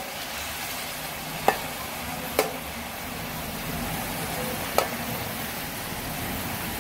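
Chicken livers sizzling in a hot metal wok while a metal spatula stirs them, knocking sharply against the pan three times.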